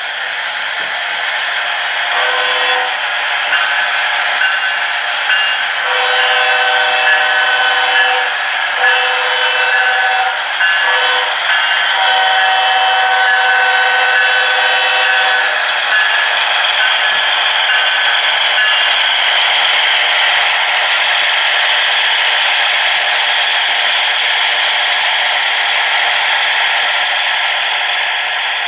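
Sound-decoder-equipped Bachmann HO model diesel locomotives running, with diesel engine sound from their small onboard speakers. The multi-note horn blows a short blast, then the long-long-short-long grade-crossing signal, ending about halfway through. The engine sound then continues steadily.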